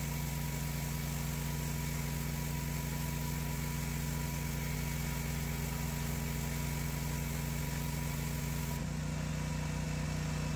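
Pressure washer running steadily, its motor humming under the hiss of the water jet on concrete. About nine seconds in, the hiss drops away while the machine's hum carries on.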